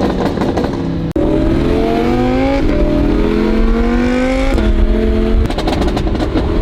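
Loud sports car exhaust, its valve open, accelerating hard. The engine note climbs in pitch and drops back at each of several gear changes. Sharp exhaust pops crackle near the start and again near the end.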